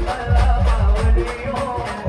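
Loud live band music: an electronic keyboard playing the melody over a quick, steady beat of heavy bass-drum hits and bright percussion from an electronic drum pad, amplified through a large PA.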